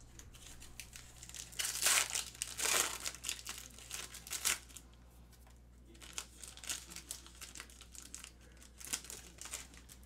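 Foil trading-card pack wrappers crinkling as packs are opened and the cards pulled out, in irregular bursts, loudest about two to three seconds in.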